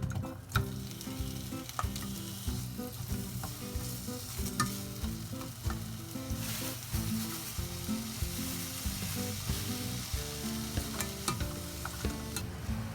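Food sizzling as it fries in a pan, with a utensil stirring it and now and then clicking against the pan.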